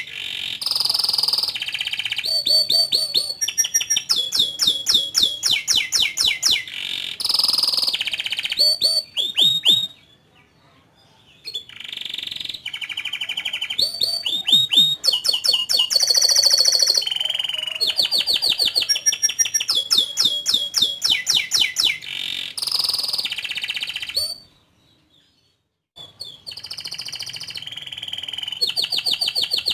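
Domestic canary singing a long song of fast trills and rapidly repeated chirps, breaking off twice for a second or two.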